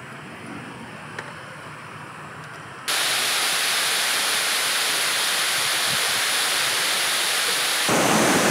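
Waterfall rushing, a loud, even sound of falling water that cuts in suddenly about three seconds in, after a quieter low rumble from an airliner on a runway. Near the end it switches to a mountain stream's rapids, a little louder and deeper.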